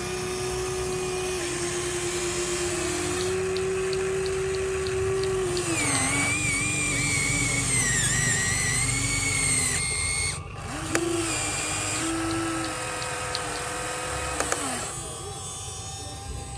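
Small electric motors and gearboxes of a Huina RC excavator whining as its functions are driven. The pitch steps up and down, a higher whine runs for a few seconds midway, then there are short bursts near the end.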